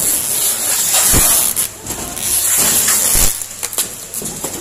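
Clear plastic wrap on a cardboard carton rustling and crinkling as a hand handles it right by the microphone, in loud surging hisses, with a couple of dull knocks about a second in and about three seconds in.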